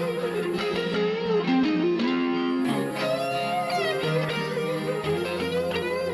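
Instrumental break in a pop-rock song: a guitar plays a melodic lead line with quick runs and bent notes over the backing band.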